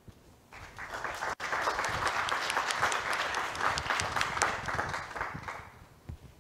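Audience applauding: the clapping starts about half a second in, builds quickly, holds, and dies away near the end.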